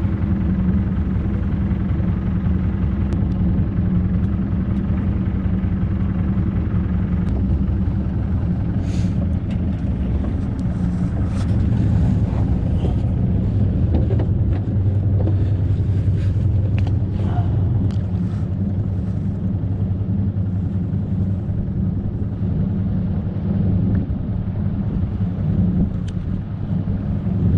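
Small fishing boat's engine running steadily with an even low hum, with a few light clicks and knocks of tackle handling in the middle.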